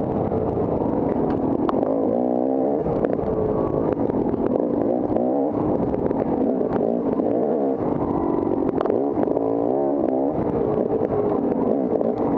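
Off-road dirt bike engine revving hard, its pitch rising and falling again and again as the rider works the throttle and gears over rough trail. Scattered sharp knocks and clatter from the bike run through it.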